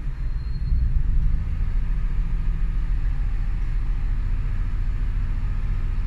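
Chevrolet Trailblazer's 4.2-litre inline-six running steadily at a raised speed of about 1,500 to 1,750 rpm. This is an engine with a misfire.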